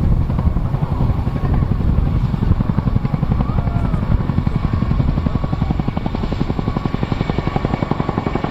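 RAF Chinook tandem-rotor helicopter running, its rotors giving a fast, even blade-slap beat over a steady turbine whine.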